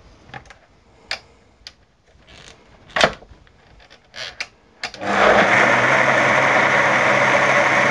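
Bosch MCM62020GB food processor's blender attachment: a few light clicks and knocks as the jug and locking lid are handled, the sharpest about three seconds in. About five seconds in, the motor starts and runs steadily, blending soup.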